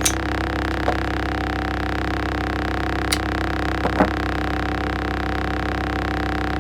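A few short, sharp metallic clicks from a folding knife being handled, the blade and lock clicking as it is worked, over a steady background hum.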